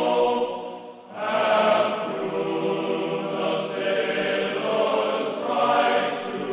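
Background music of a choir singing held notes, with a short break about a second in before the voices come back.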